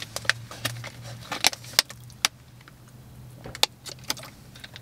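Sharp crackles and clicks of a thin plastic water bottle being handled and drunk from, over a steady low hum of the vehicle.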